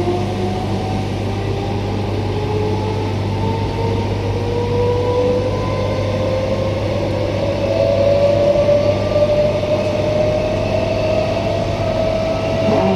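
Queensland Rail electric multiple unit accelerating, heard from inside the carriage: the traction whine rises steadily in pitch, several tones climbing together over a steady low electrical hum.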